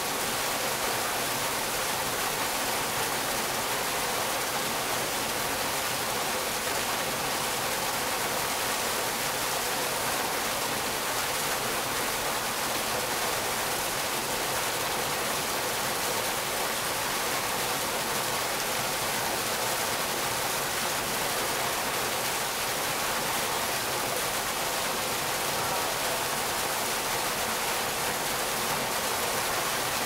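Artificial waterfall: a single column of water pouring from a concrete spout and splashing into a pool, a steady rushing that does not change.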